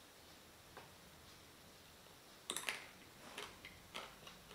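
Faint crunching of the chocolate shell of a Magnum ice-cream bar being bitten and chewed: a few crisp crackles, the loudest about halfway through, over a quiet room.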